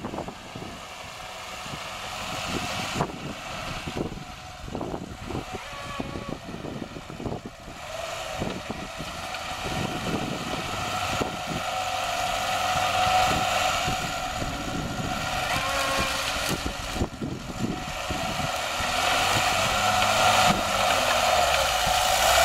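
Lada Niva's engine running hard as the 4x4 pushes through a flooded reed bog. Its note climbs slowly and it grows louder as it comes closer.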